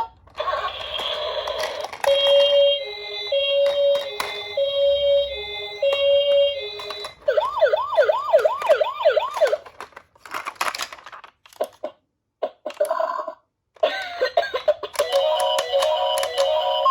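Electronic ambulance siren: a two-tone hi-lo siren alternating about once a second, then a fast rising-and-falling yelp siren about four sweeps a second. Short choppy bursts follow, and near the end a dense run of electronic, music-like tones.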